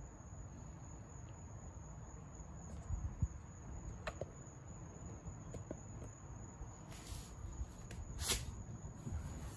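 Quiet background with a steady high-pitched tone and a low rumble, broken by a few faint clicks and rustles about three, four, six and eight seconds in.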